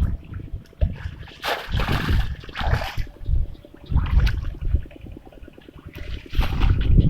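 Water splashing and sloshing in several irregular bursts, with a low rumble underneath, as hands work through water to catch fish.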